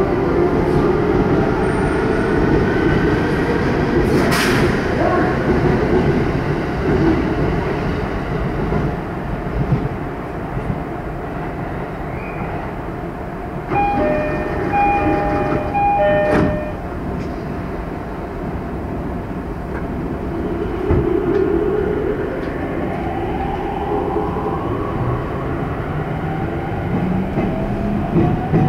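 Electric commuter trains in a station: a steady rumble and hum, a short electronic chime of two alternating tones about halfway through, then the rising whine of inverter-driven traction motors as a train pulls away near the end.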